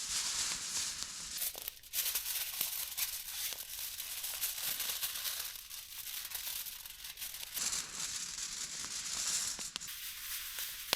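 Aluminium foil crinkling and rustling as it is unrolled and handled, with small crackles and ticks that come and go unevenly.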